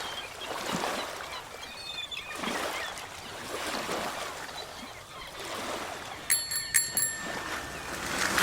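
Waves washing in a steady, swelling wash of surf. Near the end, a small bell rings four or five times in quick succession, each strike ringing on briefly.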